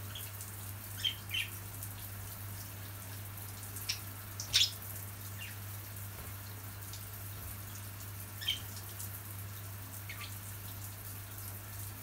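Budgerigars giving a few short, sharp chirps, the loudest about four and a half seconds in, over the steady hiss of a shower spraying water.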